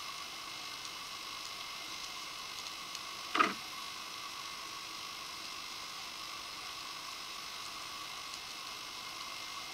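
Steady electronic hiss with a faint high whine, the underwater camera's own recording noise, and no water or engine sounds. About three and a half seconds in, a single short loud knock-like burst.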